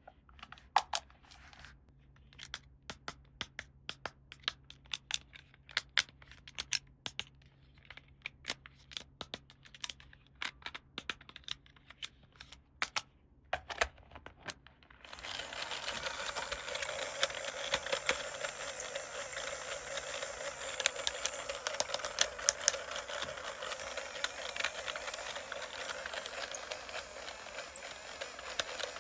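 Small plastic toy pieces being handled, with scattered sharp clicks and taps. About halfway in, a steady crinkling rustle starts and runs on with clicks through it until just before the end.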